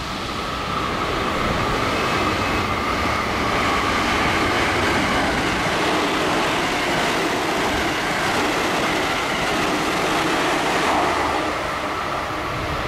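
A JR Central 313-series electric multiple unit passing through a station at speed: a steady loud rush of wheels on rail, with a high whine held over it, for about twelve seconds.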